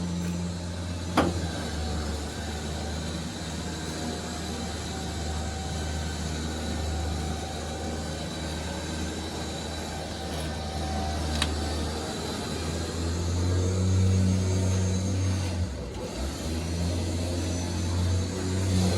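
A vehicle engine running steadily with a low drone. It swells a little about two-thirds of the way through, then dips briefly. There is a sharp knock about a second in and a fainter one later.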